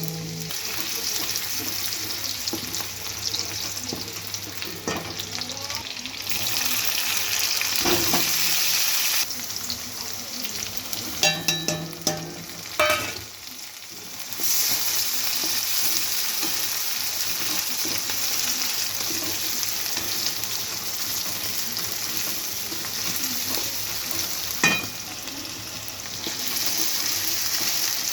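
Cluster beans and potatoes sizzling in hot oil in a pan with a steady hiss while a utensil stirs them. Short metal clinks of the spoon against the pan come about eleven to thirteen seconds in, and once more near the end.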